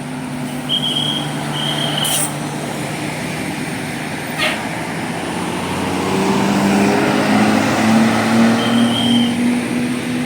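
Road traffic: a vehicle engine running, getting louder from about six seconds in as it comes closer, with a few short high-pitched beeps over it.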